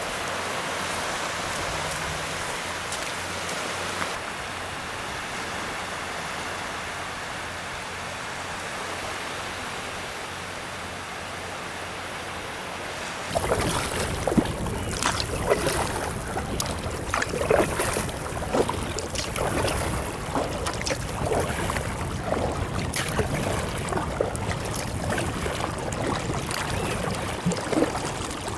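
A steady rushing hiss of light surf and breeze at the shoreline. About halfway through it gives way to kayak paddle blades dipping into calm sea water: irregular splashes and drips, one or two a second, over a low rumble.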